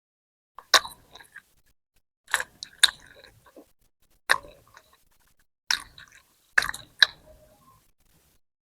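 Close-miked mukbang eating sounds of roti and bhindi keema: about seven short, sharp bites and chewing smacks in separate bursts, with silence between them.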